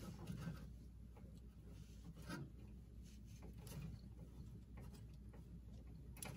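Faint rubbing and rustling of insulated electrical wires being handled and bundled by hand, with a few soft clicks.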